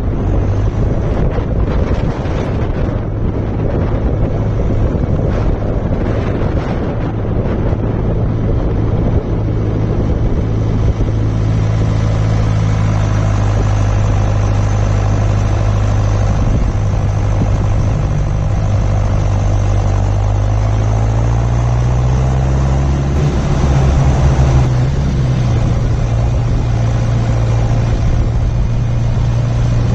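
John Deere 6400 tractor's diesel engine running steadily while driving, its engine speed rising about two-thirds of the way through and holding there. Wind buffets the microphone in the first several seconds.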